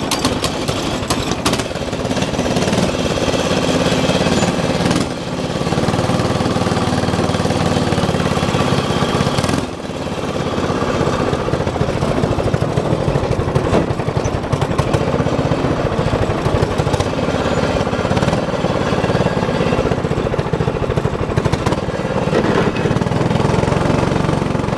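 Go-kart's small single-cylinder engine running steadily, its pitch wavering slightly, with brief dips in level about five seconds in and again near ten seconds.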